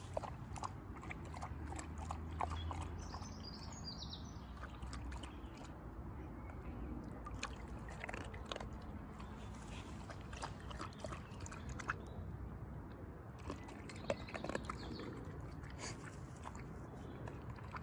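Dog nosing and lapping in a plastic bowl of water while bobbing for sunken treats: small irregular splashes and clicks.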